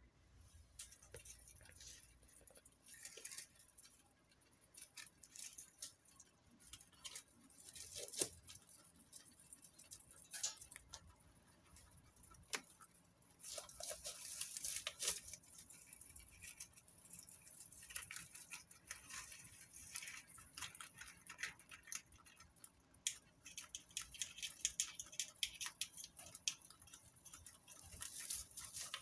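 Guinea pigs rustling through and nibbling dry hay: faint, irregular crackling and rustling with scattered sharper crunches.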